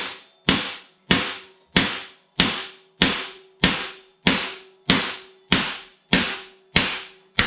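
Hammer striking a John Deere mower deck spindle that has wedged itself in the deck, knocking it out: about a dozen evenly spaced blows, a little under two a second, each ringing briefly off the metal.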